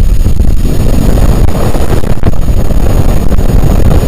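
Loud, steady deep rumbling drone with a faint hiss above it, played as the sound of the planet Venus.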